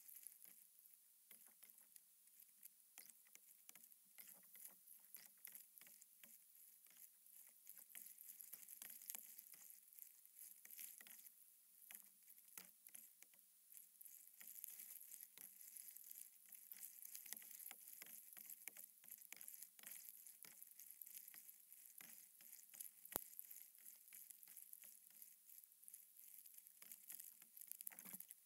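Faint, dense crackling patter of water from paddling a stand-up paddleboard, sped up eight times.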